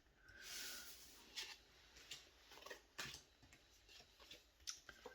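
Faint handling of tarot cards: a brief slide of card stock near the start, then a few light taps and clicks as cards are set down.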